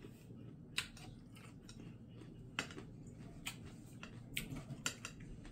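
Faint eating sounds from a person eating stir-fried chicken feet by hand: quiet chewing with about five small sharp clicks spread through.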